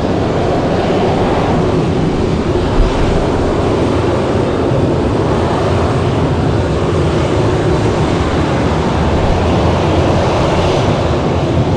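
Jet airliner engines running with a steady, loud noise that holds level throughout.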